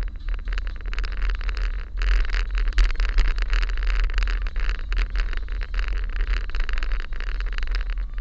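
Car driving slowly along a paved road, heard from a camera mounted on the car: a steady low rumble with a crackly hiss of road and wind noise that grows louder about two seconds in.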